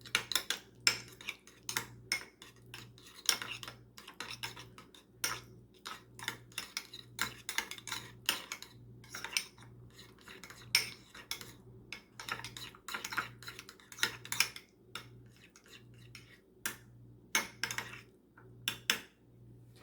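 A utensil clinking and scraping against a bowl in quick, irregular taps while a thick sour cream dipping sauce is stirred.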